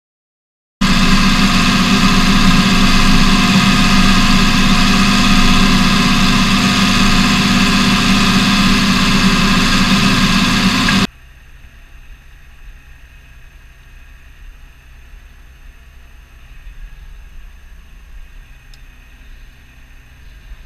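Massey Ferguson 6480 tractor's six-cylinder diesel engine running, loud and close, heard from outside beside the bonnet. About halfway through it drops suddenly to a much quieter, muffled engine hum heard from inside the cab.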